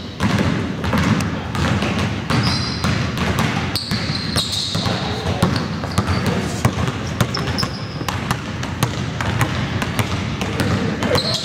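Basketballs dribbled on a hardwood gym floor: a steady run of quick bounces, with short high sneaker squeaks on the wood a few times.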